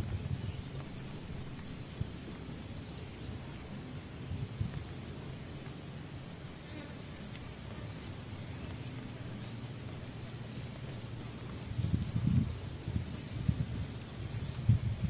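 Forest ambience: short, high chirps that rise in pitch, repeated irregularly about once a second, from a small bird or insect. Beneath them runs a low hum, which turns louder and bumpier near the end.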